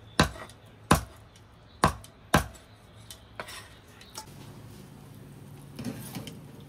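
A heavy knife chopping through bone-in chicken with hard blows: four loud chops in the first two and a half seconds, then a few lighter knocks. From about four seconds in, a steady low hum takes over.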